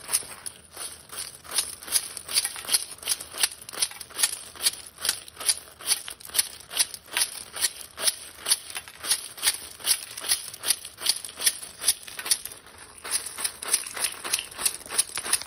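A white-bellied caique digging through a metal tin full of small plastic pieces, which clatter and rattle against each other and the tin at about four scrapes a second, with a brief lull about three-quarters of the way through.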